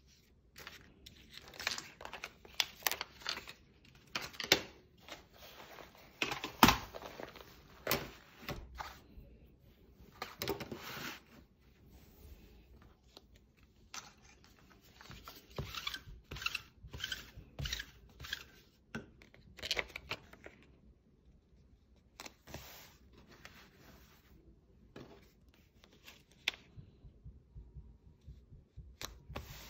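Heat transfer vinyl being peeled and handled: irregular short tearing and crinkling sounds in clusters with pauses, with one sharper snap about a third of the way in.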